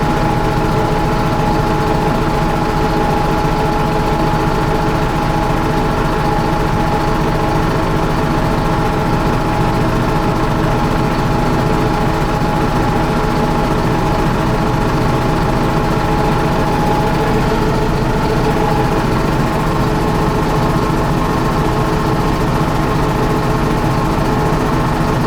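Bucher CityCat 5000 street sweeper running steadily, its Mercedes OM 904 LA four-cylinder diesel idling with a steady whine over the engine note.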